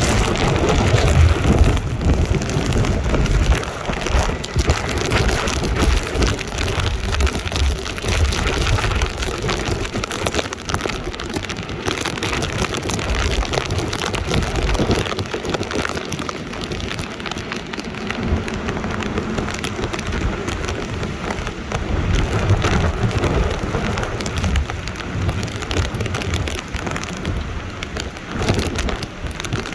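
Gale-force wind with driving rain, rushing and spattering, the wind buffeting the microphone in gusts as a deep rumble that is loudest in the first few seconds.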